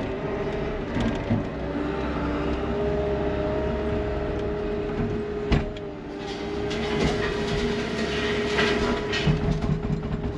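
Cat 299 compact track loader's diesel engine running under load with a steady hydraulic whine. There is a sharp knock about halfway through, then a clatter of dirt and rocks spilling from the bucket onto the steel bars of the screen near the end.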